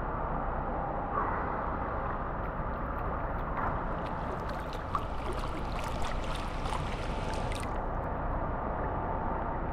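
Pool water sloshing and splashing close to a GoPro while someone swims, with a steady churning wash underneath; the splashing is busiest from about three and a half to nearly eight seconds in.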